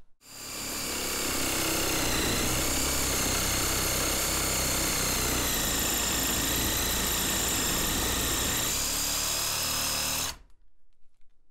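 Reciprocating saw running and cutting into a Mora knife's handle of thin over-moulded rubber over hard plastic. It spins up over the first second, holds a steady running whine, and cuts off abruptly near the end.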